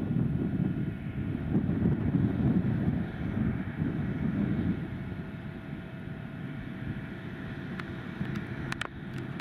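Farm machinery running at work in the field, a steady engine hum with faint whining tones, under gusts of wind buffeting the microphone that ease after about five seconds. A few sharp clicks near the end.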